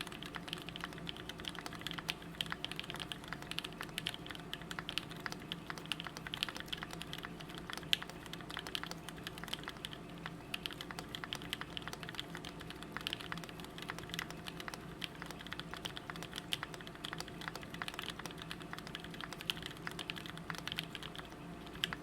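Fast, continuous typing on a custom mechanical keyboard (KCL x Syryan Design EM8) with an aluminum plate, lubed PrimeKB Cobalt linear switches and GMK doubleshot ABS keycaps: a dense run of keystroke clacks with one louder stroke about 8 seconds in, stopping right at the end.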